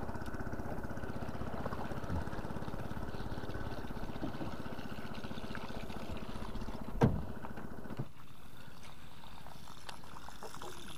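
A boat engine running steadily, dropping away about eight seconds in. A sharp knock about a second earlier is the loudest sound.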